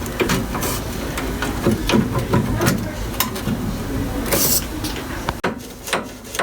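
Clicks and knocks of tools and small parts being handled, with a brief noisy rush about four seconds in.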